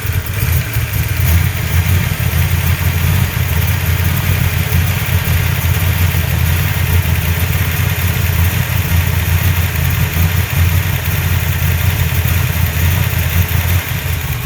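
347 V8 engine idling with a misfire, which the owner, at a loss, wonders may come from a vacuum leak.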